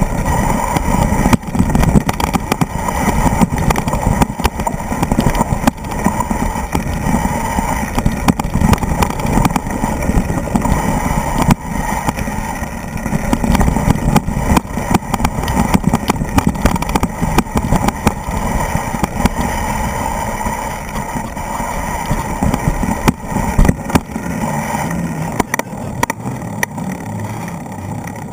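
Wind rumble on the microphone with the rattling and knocking of a mountain bike and its mounted camera jolting over a rocky dirt trail. Near the end the knocks thin out and the rumble drops as the bike rolls onto smooth pavement.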